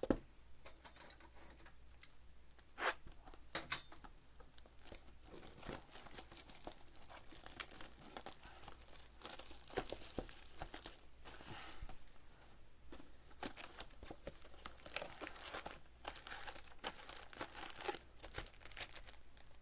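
Trading card packaging being torn open and handled: faint, irregular crinkling and tearing of the wrapping, with small clicks and crackles.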